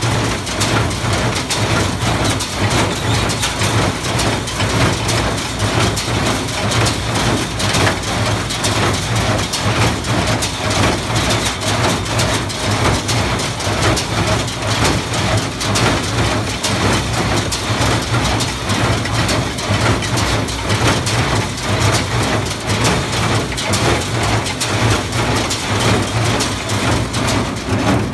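New Holland small square baler running in the field, pulled by a tractor whose engine gives a steady low hum, the machine's pickup tines and works keeping up a dense, even clatter as it gathers and bales hay.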